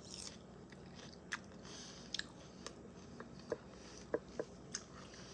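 A person chewing a mouthful of chicken salad close to the microphone: quiet, irregular wet clicks and light crunches.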